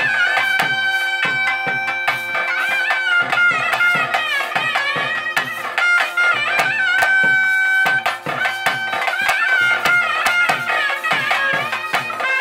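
Traditional ritual music: a shrill reed pipe plays a held, wavering melody over fast, steady drumming.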